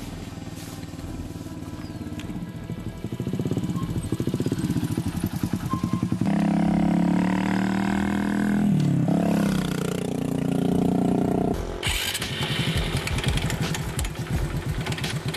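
Small single-cylinder two-stroke motorcycle engine running with a rapid, even firing beat. In the middle there is a louder stretch of steady tones that step up and down in pitch.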